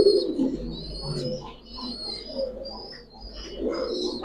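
Domestic pigeons cooing in a loft, many birds at once, with frequent high chirps over the cooing.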